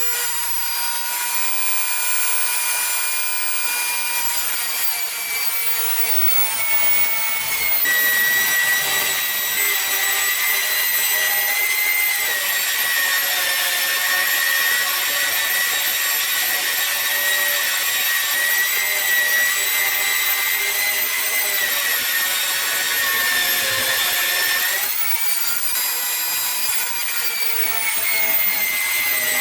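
Angle grinder running continuously, a high motor whine over a grinding hiss. About eight seconds in the whine drops in pitch and gets louder as the disc is loaded against the metal, then it rises and eases for a moment near the end before bearing down again.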